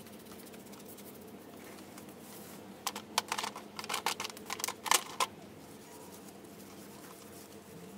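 A quick flurry of light, sharp clicks and taps, like small hard objects knocking together, lasting about two seconds in the middle, over a faint steady hum.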